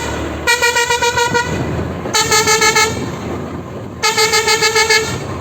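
Bus telolet horn sounding three short bursts of rapidly pulsing air-horn tones, each under a second long, with the pitch stepping lower after the first burst.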